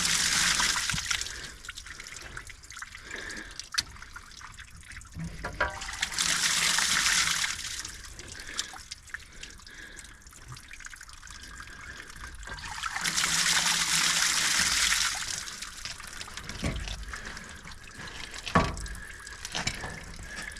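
Water draining out of an outdoor furnace's plumbing, running steadily and surging louder three times, with a couple of sharp knocks.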